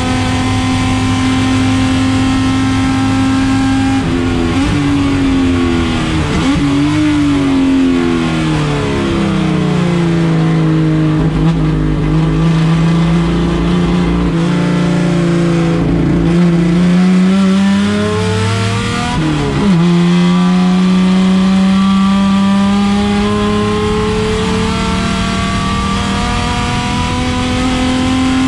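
A race car engine running hard under load, its pitch changing with throttle and gears: a steady high note, falling away through the early middle to a lower note held for several seconds, then after a sudden drop about two-thirds in it climbs steadily again.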